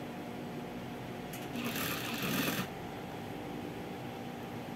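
Industrial sewing machine running briefly: one short burst of stitching, about a second long, starting about a second and a half in, over a faint steady hum.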